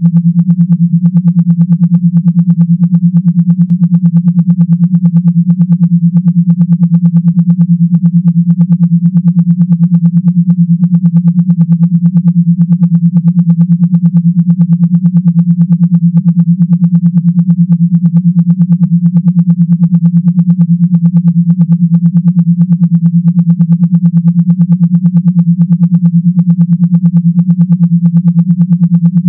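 Electronically generated low buzz tone, loud and steady in pitch, pulsing rapidly and evenly: a vibration sound of the kind played to shake water or dust out of a phone speaker.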